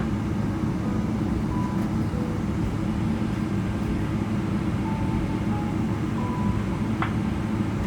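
Steady low rumble inside the cabin of a Boeing 777-300ER taxiing, its GE90 engines at idle, with a faint click about seven seconds in.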